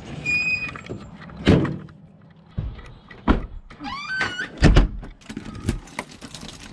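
A short beep, then a run of thuds and clunks: a house front door being pulled shut, squeaking just before it closes with a loud thud about four and a half seconds in. Keys then clink against the doorknob lock near the end.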